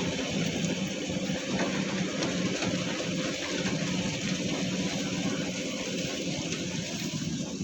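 Diesel engine of a heavy quarry machine running steadily at a low, even pace, with a steady hiss over it.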